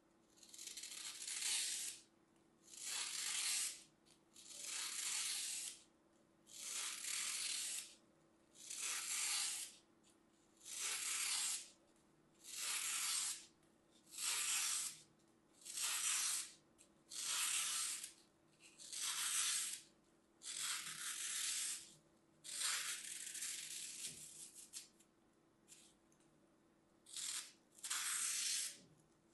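A thin blade slicing through a block of dry green floral foam, one cut after another, about fifteen cuts in all. Each cut is a gritty hiss lasting about a second, with short pauses between.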